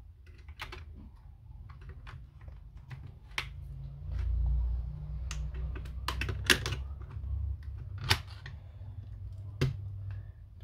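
Scattered sharp clicks and taps of hard parts and tools being handled while an Apple Time Capsule is taken apart, with a low handling rumble a few seconds in. The loudest clicks come about six and a half and eight seconds in.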